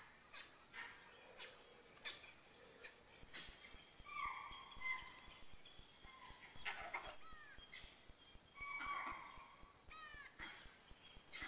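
Birds calling in the open: short harsh calls, a few longer calls with clear held notes, and a quick run of falling chirps near the end.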